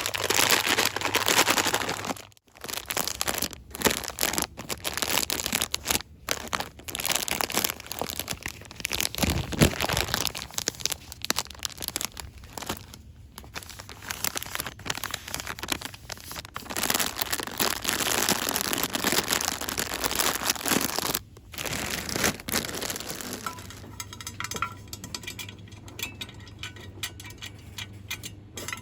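Fast, close-up crinkling and crackling of packaging handled for ASMR, in rapid bursts with short breaks. It turns quieter and sparser near the end.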